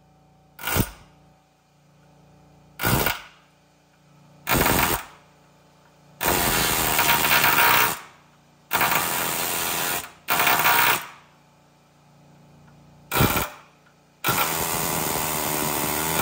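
Pneumatic air hammer with a chisel bit hammering at a rusted fastener on a steel truck frame, in eight bursts of rapid blows. Some bursts are short triggers and the longest run about two seconds, with short pauses between them.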